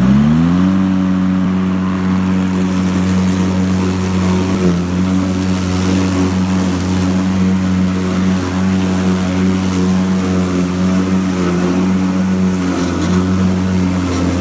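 Electric ride-on mower driving at speed: its drive hum rises in pitch over the first second, then holds a steady tone, over a constant rush of wind and tyre noise.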